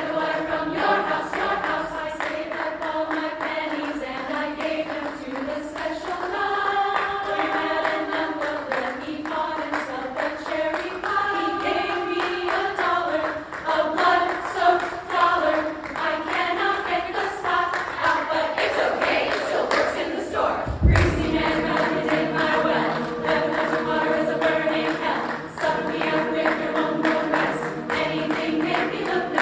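Women's chorus singing in several-part harmony with a lively, rhythmic line. One low thump about two-thirds of the way through.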